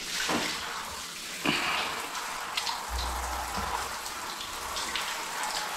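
Water spraying from a hose in several fine jets onto a dog's head and splashing on a tiled floor, a steady hiss. A brief low rumble comes about three seconds in.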